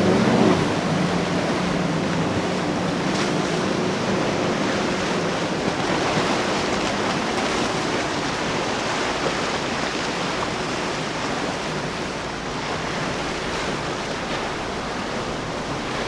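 Surf and waves washing at an ocean inlet, a steady rushing with some wind on the microphone. A passing boat's engine drone fades out about a second in.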